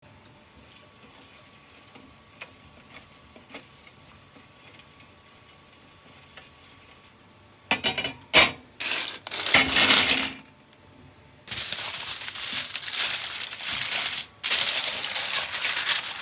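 Hard clattering on a stainless steel tray and wire rack, with a few sharp strikes. After a short lull, aluminium foil crinkles as it is pressed over the tray, broken once by a brief pause.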